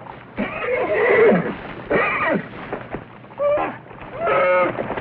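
A horse whinnying over and over, four short calls in quick succession that rise and fall in pitch.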